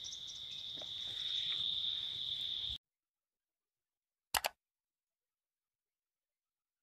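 Steady high-pitched insect drone from the forest undergrowth, cut off abruptly about three seconds in. After a gap of dead silence, a short double click, a mouse-click sound effect, comes a little over four seconds in.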